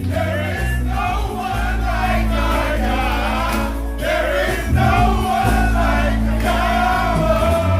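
Music: a choir singing with vibrato over a sustained, deep bass line.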